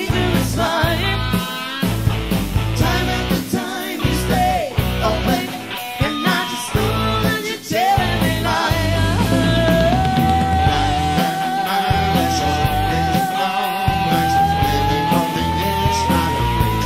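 A band playing a rock cover song over a driving beat of drums and bass. About halfway through, one high note is held and slowly rises in pitch.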